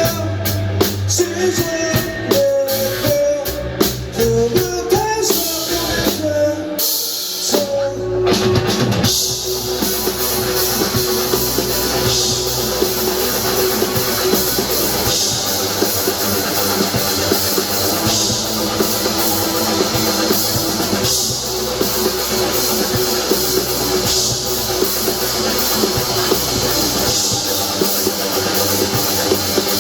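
A rock band playing live on drum kit, electric guitars and bass. For the first few seconds a gliding melodic line rides over the drums. After a short thinning about eight seconds in, the band swells into a dense, sustained full-band passage under a constant wash of cymbals.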